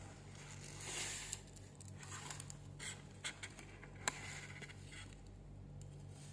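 Faint rustling and crinkling of a folded paper checklist leaflet being handled and shifted, with a few small clicks and taps.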